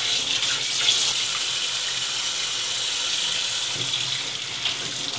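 Kitchen tap running steadily into a stainless steel sink, the stream splashing over a split rockfish as hands rinse out its gills and innards.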